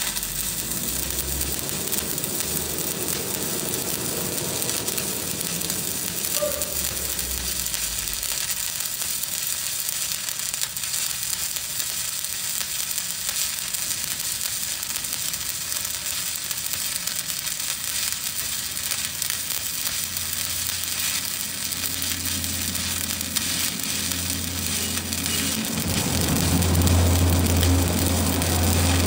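Stick-welding arc burning steadily on a 7018 electrode run uphill: a continuous crackling sizzle, with a low hum coming up louder near the end.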